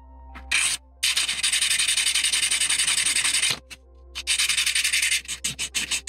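220-grit sandpaper rubbed quickly back and forth over a small brass buckle held in a hand clamp. There is a short rub, then a long run of rapid strokes, a brief pause, and choppier short strokes near the end.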